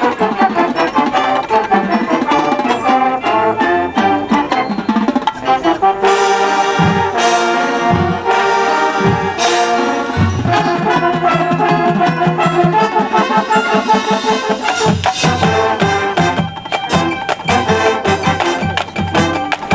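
Marching band playing brass and percussion. A loud full-band brass entrance comes in about six seconds in over heavy bass-drum hits, and quicker drum strokes pick up near the end.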